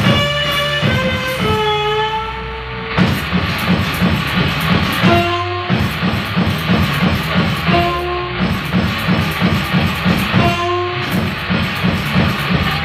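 A live rock band playing: a steady drum beat and guitar, with long held melody notes coming in near the start and again every few seconds.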